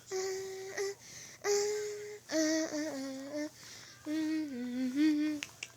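A person humming a tune in a series of held notes, some steady and some wavering, with short breaks between them.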